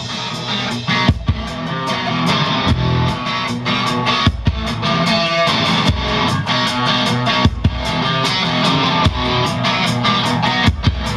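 Live rock band playing a passage without vocals: electric guitars over a drum kit, with a steady beat.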